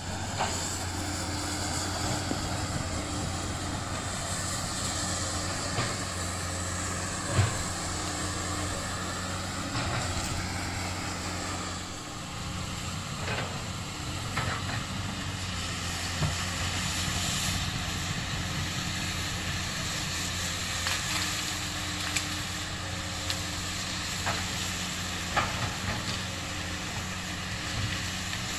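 Komatsu PC200 hydraulic excavator's diesel engine running steadily, with a low even hum and a noisy hiss over it. Sharp cracks and knocks come through at intervals, the loudest about seven seconds in.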